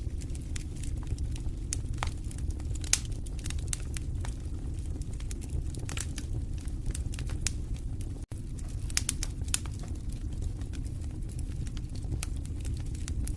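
Wood fire in a fireplace crackling, with frequent sharp irregular pops and snaps over a steady low rumble of the flames. A split-second dropout about eight seconds in.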